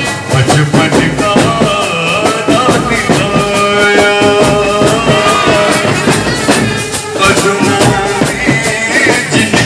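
A brass band playing: trumpets sounding held notes over a fast, steady beat of drums and shaken percussion, with a man singing a Muharram noha lament through a microphone and loudspeaker.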